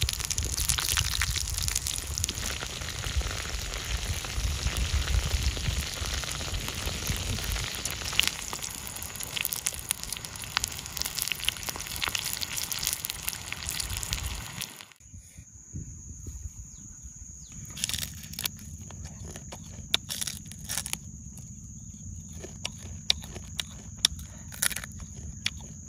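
Crunching and chewing of crisp-fried rhinoceros beetles: many small sharp cracks, dense over a noisy background at first. After a cut about halfway through, louder separate crunches follow over a steady high-pitched hum.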